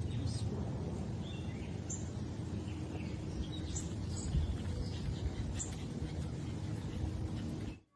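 Outdoor background noise, a steady low rumble, with scattered short high bird chirps; it cuts off abruptly near the end.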